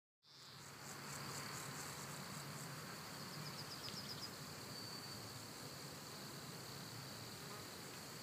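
Faint outdoor ambience of insects chirping: a steady high buzz, with a short run of quick chirps about three seconds in, over a faint low hum. It starts abruptly out of silence.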